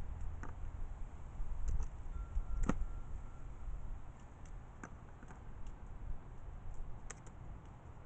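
A crow's beak pecking and picking up peanuts on a plastic table top: scattered sharp clicks and taps, the loudest about two and a half seconds in.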